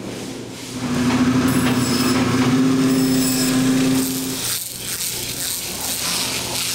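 Machinery humming steadily with a faint high whine for the first few seconds, then a rougher scraping as a hand scaler is dragged across the scales of a frozen salmon.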